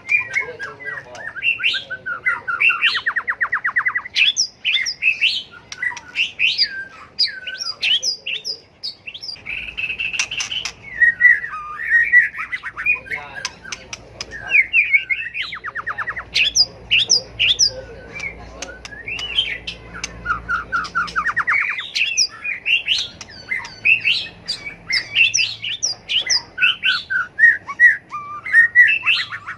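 White-rumped shama singing a long, varied song of loud whistled phrases, with fast buzzy trills mixed in three times.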